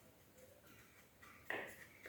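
A single sharp knock about one and a half seconds in, with a short ring, over otherwise faint room tone.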